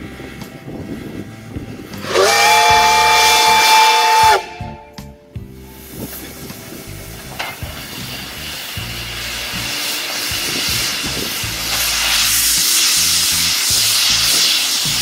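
Soviet L-class steam locomotive sounding its steam whistle once for about two seconds, a chord of several pitches that cuts off sharply. Later, steam hissing from its opened cylinder drain cocks grows steadily louder.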